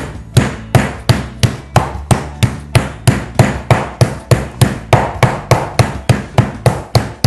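Metal meat mallet pounding chicken breasts flat through plastic wrap on a plastic cutting board. It strikes in a steady, even rhythm of about three sharp blows a second.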